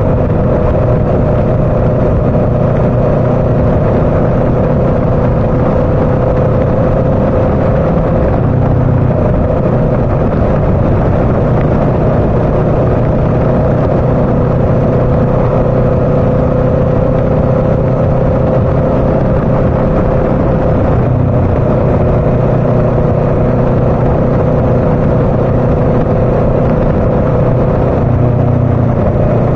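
Motorcycle engine running at a steady cruise while riding, with wind and road noise over the bike-mounted microphone. The engine note breaks briefly about 8 and 21 seconds in.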